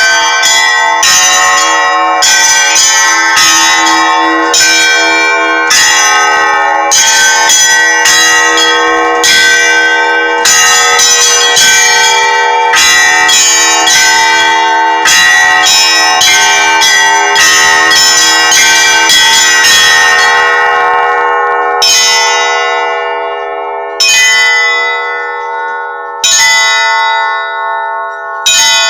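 Church bells ringing: several bells of different pitch struck quickly in a steady rhythm, several strokes a second. About two-thirds of the way through the quick strokes stop, and single strokes follow about every two seconds, each left to ring out and fade.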